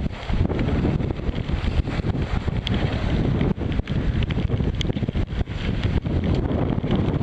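Strong wind buffeting the microphone at sea aboard a small sailboat, a gusty rumble with scattered sharp ticks.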